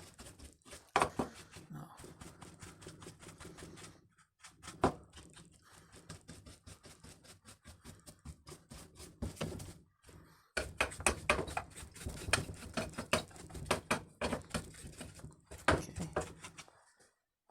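Rapid scratchy clicks and taps of hand cleaning work on a Stihl MS 181 chainsaw's parts, over a low hum. They come in three runs, with short pauses about 4 and 10 seconds in.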